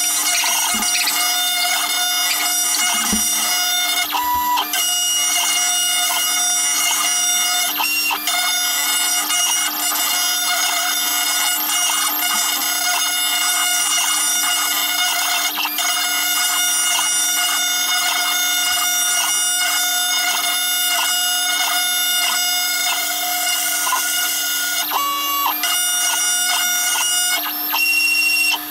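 Small CNC router milling a folding-knife handle scale: its spindle and drive motors run continuously, and the sound is sped up six times. It comes out as a loud, steady, high-pitched drone of several tones, with brief breaks every few seconds as the cutter changes pass.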